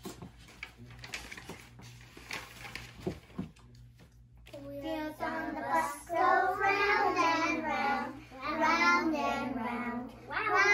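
A group of young children singing together, coming in after about four seconds of faint rustling and shuffling.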